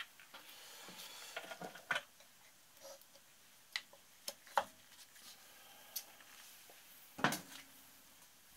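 Small metal clicks and taps as gloved hands work on a piston fitted to a single-cylinder motorcycle engine's connecting rod, with a louder knock about seven seconds in.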